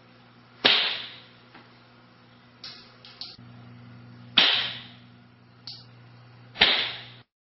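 Homemade lip-balm-tube missile fired three times: three sharp snaps, each trailing off over about half a second, the first under a second in and the others about four and six and a half seconds in. Softer clicks come between the shots.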